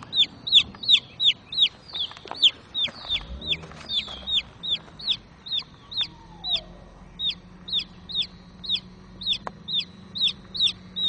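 Baby chick peeping loudly and without pause, about three high, falling peeps a second: the rapid descending peeps typical of a chick's distress call.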